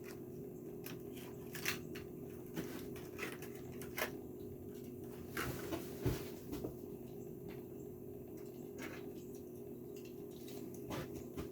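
Faint, scattered crinkles and clicks of a Hot Wheels blister package being handled and opened, its plastic bubble and cardboard card, over a steady low hum.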